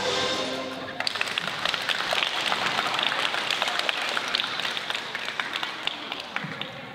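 Routine music ending about a second in, followed by an audience applauding, the clapping dying away near the end.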